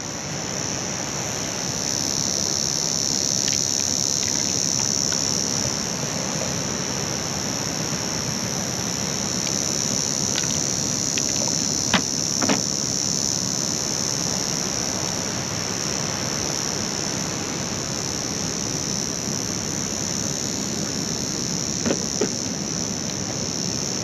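Steady high-pitched drone of a chorus of insects, over a steady rushing background noise, with a few short knocks near the middle and again near the end.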